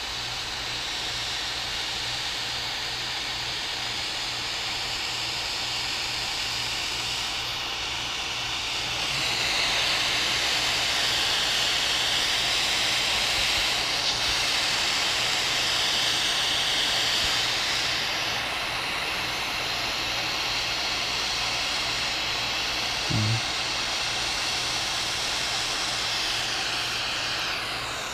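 Large propane torch burning with a steady hiss, louder for a stretch in the middle, with a brief low bump about three-quarters of the way through.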